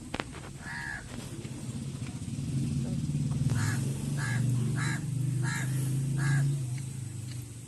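Crows cawing, a run of short harsh calls in quick succession, over a low steady drone that swells up a few seconds in and fades near the end.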